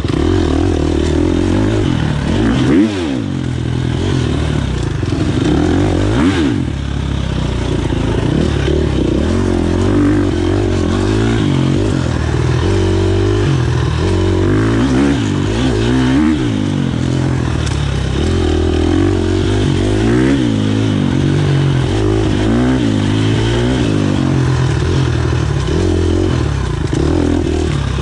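Enduro motorcycle engine revving up and down as the bike is ridden hard off-road. The revs drop and climb again sharply about three seconds in and again at about six seconds.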